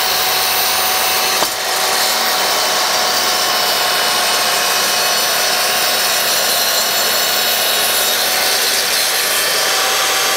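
Skil 10-inch 15-amp sliding miter saw running at full speed with a steady motor whine, its blade cutting into a wide oak board. There is a brief click about a second and a half in.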